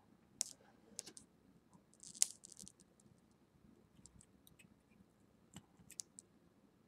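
Faint, scattered small clicks and taps, about ten of them with the loudest about two seconds in: ceramic tweezers working a freshly wound nichrome Clapton coil on a rebuildable dripper deck, and the box mod's fire button, as the new coil is being seated and pulsed.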